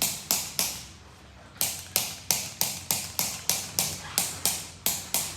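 A quick, even run of sharp slapping strikes, about three a second, with a pause of about a second shortly after the start.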